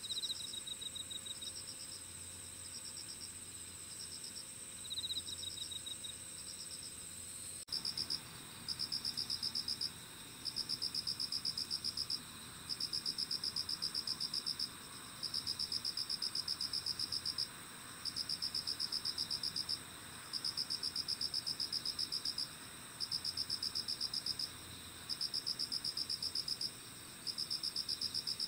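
Night insects calling together in a steady high-pitched chorus. About eight seconds in, the sound changes to a louder, fast pulsing trill that comes in repeated bursts of about two seconds with short pauses between them.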